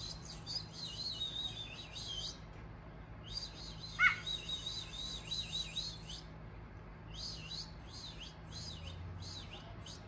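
Birds chirping: three runs of quick, high chirps, with one short, louder call about four seconds in.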